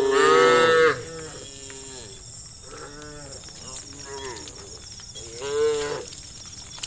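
Several cows in a herd mooing: a loud moo right at the start lasting about a second, a few quieter, overlapping moos through the middle, and another loud moo near the end.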